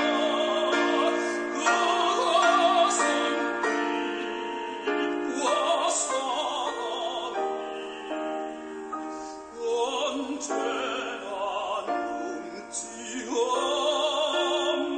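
Background music in a classical, operatic style: a wavering vibrato melody over held chords.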